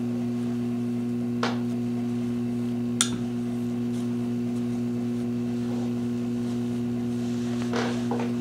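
A metal grooming comb clicks lightly a few times as it works through a standard poodle's ear hair, over a steady low electrical hum.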